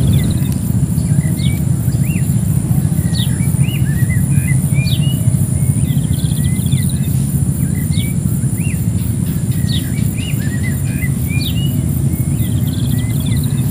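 Birds chirping again and again, short rising and falling calls about once a second, over a steady low rumble and a steady high-pitched hiss.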